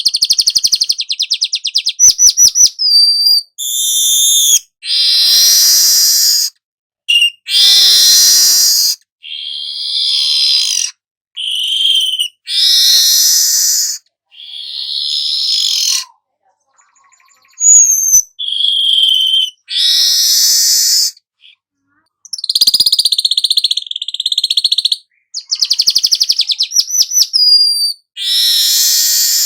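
Weaver bird (manyar kepala emas, golden-headed weaver) singing: high, buzzy, rattling chatter phrases of a second or two each, repeated with short breaks between them.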